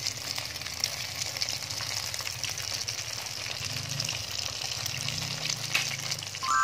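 Hot oil sizzling and crackling steadily around breadcrumb-coated bread apple pies frying in a pan.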